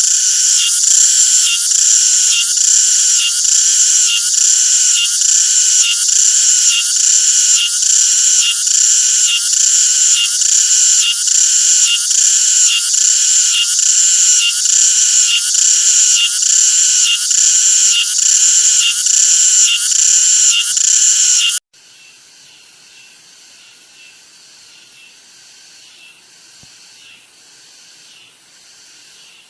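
Cicada singing: a loud, high, rasping buzz that swells in regular pulses a little more than once a second. About 22 seconds in it cuts off abruptly, and a much fainter cicada buzz with a similar pulse carries on.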